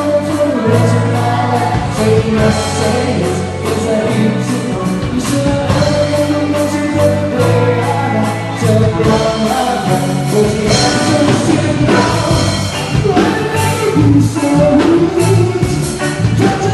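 Band music with singing over a steady drum beat and a bass line.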